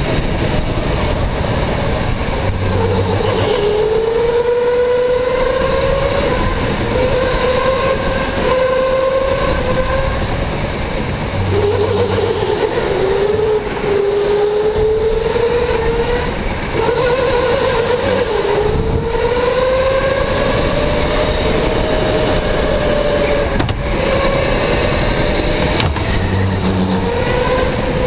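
Electric go-kart motor whining, its pitch climbing slowly as the kart accelerates and dropping sharply as it slows into corners, several times over, above a steady rushing noise.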